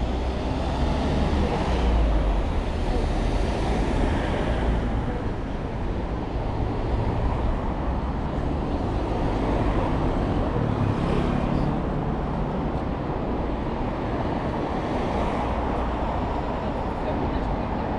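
Steady city road traffic noise, with cars passing and swelling louder a couple of times.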